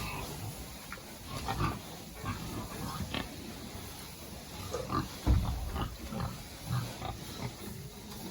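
Purebred Berkshire pigs grunting at close range, short irregular grunts with a louder low one about five seconds in.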